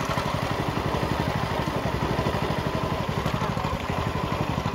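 Small boat engine running steadily, with a fast, even low pulse.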